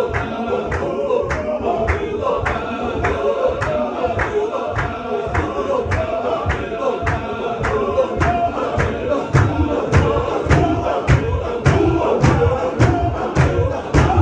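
Chechen zikr: a group of men chanting together in unison, over a sharp rhythmic beat. The beat quickens to about two a second and grows louder in the second half.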